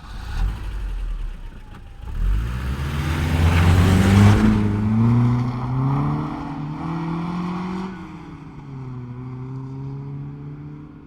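Passenger car engine revving: its pitch and loudness rise from about two seconds in, peak around the middle, then drop back to a steadier, lower running note.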